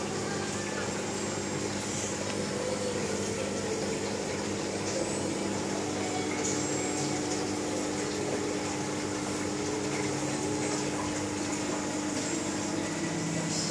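Aquarium submersible pump and air bubbles running steadily: an even rush of moving, bubbling water with a faint low hum.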